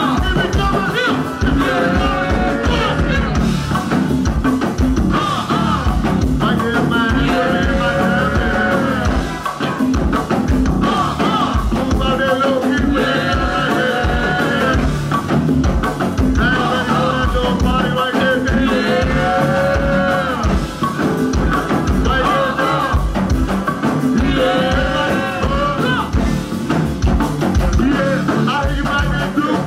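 Live band playing: a steady drum-kit beat with bass underneath, and melodic phrases repeating over it.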